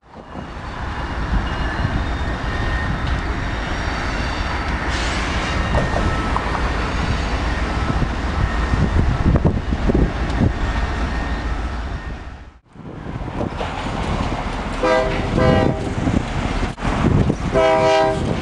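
Diesel freight locomotives moving through a rail yard: a steady engine rumble with rolling noise and wind on the microphone. After a short gap, a locomotive horn sounds twice near the end.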